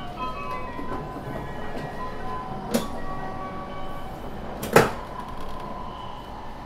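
Inside a moving E5 series Shinkansen car: the train runs with a steady rumble and a faint whine. Two sharp clunks come about two seconds apart, the second and louder one about five seconds in.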